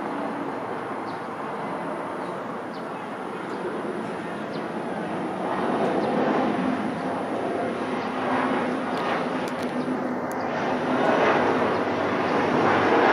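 Jet airliner's turbofan engines on landing approach with gear down: a steady jet rumble that grows louder from about halfway through as the plane comes closer.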